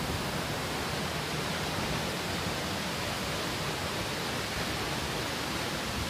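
Steady, even rush of a waterfall and its fast-flowing river.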